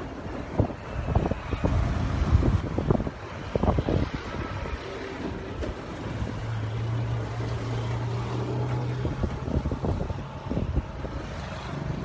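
Gusty wind buffeting the phone's microphone, with a low steady engine drone for a few seconds in the middle.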